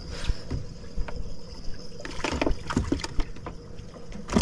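Scattered knocks and bumps from bass being handled in a boat's livewell while they are sorted by size, over a steady low rumble and a faint hum.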